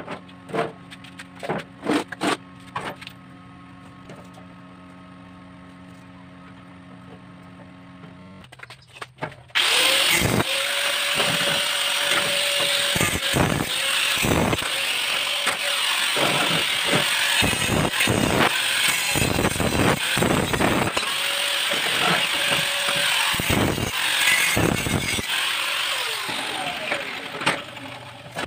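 After a few clicks and a low steady hum, an angle grinder starts suddenly about ten seconds in and grinds steadily on the welded joints of a square steel-tube chair frame, with short dips as it is lifted and set back. It fades out near the end.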